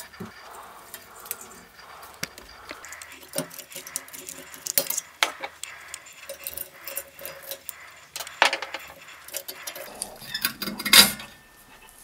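Scattered metallic clinks, taps and scrapes as a microwave magnetron's parts are handled and its ring-shaped ferrite magnet is worked off. The loudest clack comes near the end.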